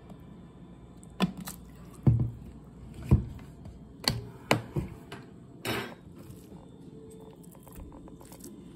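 Kitchen handling sounds as sauce is spooned onto ground beef and a gloved hand works the mixture in a ceramic bowl: about seven dull knocks and clicks, one of them a short rustle, over the first six seconds, then only faint ticks.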